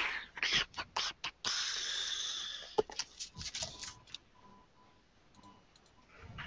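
A run of short clicks, a hiss lasting about a second, then more clicks, all picked up by a voice-chat microphone.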